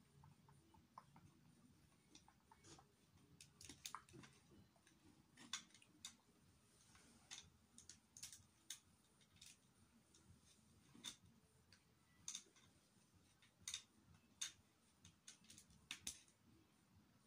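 Faint, irregular clicks of plastic Lego bricks being handled and pressed together, coming every second or so.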